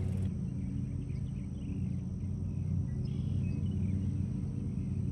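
Steady low hum from an unseen source, with a few faint bird chirps over it.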